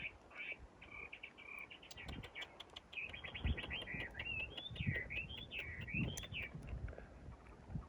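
A songbird singing a varied song: a few short notes, a rapid trill about three seconds in, then quick warbling phrases that swoop up and down. Several low knocks sound underneath.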